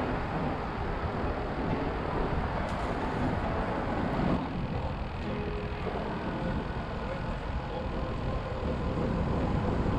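Steady outdoor rushing noise, heaviest in the low end, with no distinct event standing out.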